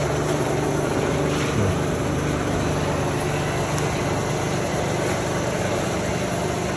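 Rebuilt Bridgeport milling machine running steadily with a constant low hum. It runs a little noisy, which the owner puts down to a bushing that needs replacing.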